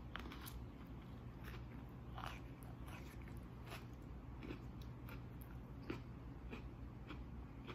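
A bite into a soft flour tortilla wrapped around Oreo cookies and ranch, then chewing, with faint, irregular crunchy clicks about twice a second.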